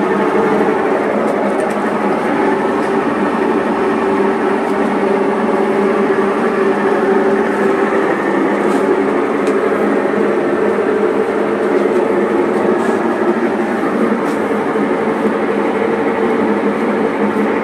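Whirlpool 360 Blossom top-loading washing machine running in its spin cycle with a loud, steady mechanical noise. The technician traces the noise to the gearbox, where a failed bearing is typically the first fault.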